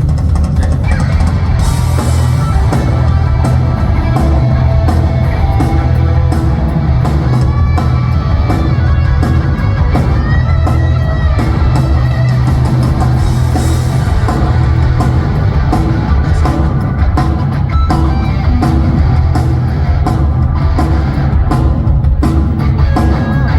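Live rock band playing loud and steady, with electric guitar, bass and drum kit.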